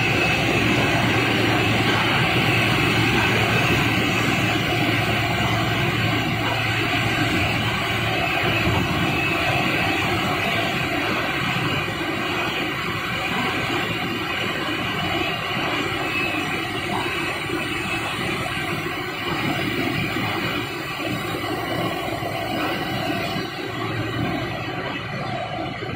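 Steady machinery noise of a running cable extrusion and insulation line: a dense mechanical hum with a few steady whining tones. A low hum drops away about a third of the way in, and the whole gradually gets quieter.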